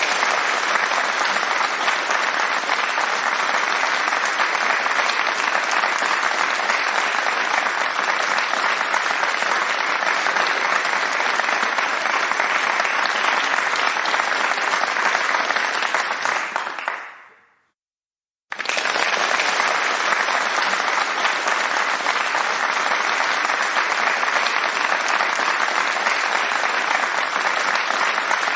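Steady crowd applause. It fades out about seventeen seconds in, stops for under a second, then starts again abruptly at full strength.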